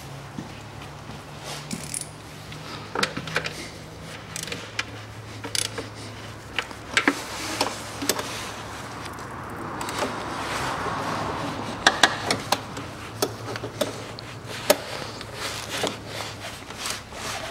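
Scattered clicks, taps and rattles of hand tools and a metal wiring bracket as the bracket is fitted and bolted onto the engine, over a steady low hum.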